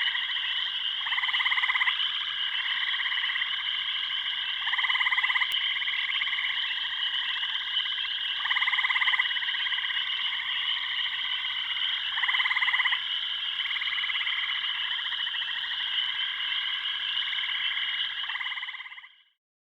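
A chorus of frogs calling without a break, with a louder croaking call standing out about every four seconds. It fades out near the end.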